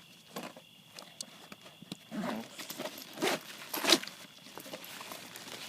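A backpack being handled: fabric rustling and a few short scrapes, the loudest two about three and four seconds in.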